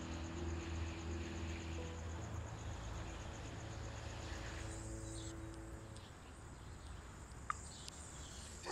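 Crickets chirring steadily under a low, steady hum that fades out about six seconds in; a faint click near the end.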